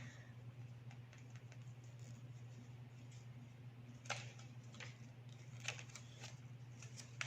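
Faint, scattered small plastic clicks and taps from handling wireless earbuds and their charging case, a few sharper clicks about four and five seconds in and at the end, over a steady low electrical hum.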